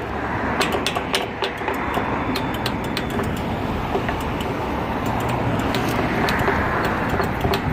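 Road traffic passing through an intersection: a steady rush of car engine and tyre noise, with scattered light clicks.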